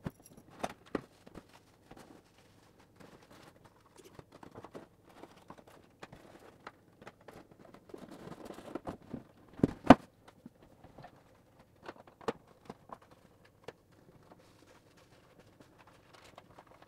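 Styrofoam packing and parts being handled during unpacking: scattered light knocks, clicks and rustles, with one loud thump a little under ten seconds in.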